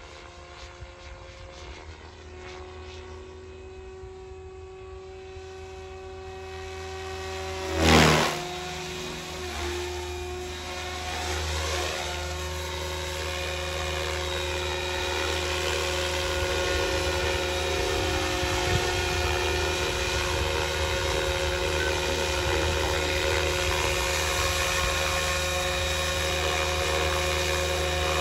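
SAB Goblin 500 Sport electric RC helicopter's motor and rotor blades whining in flight, a steady stack of tones that grows louder as it comes in. About eight seconds in there is a brief loud surge with the pitch sweeping, then a steady, louder whine as it hovers low.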